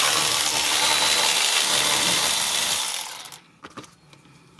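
A ratchet with a 12 mm socket running out one of the bolts that hold the under-engine dust shield: a steady, noisy ratcheting for about three seconds that stops abruptly.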